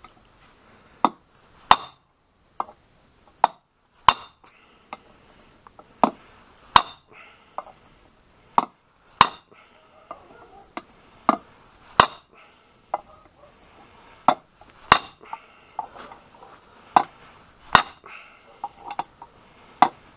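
Hand hammer striking metal, peening nails used as rivets into a motorcycle ratchet part. The sharp, ringing blows come in an uneven series, roughly one a second.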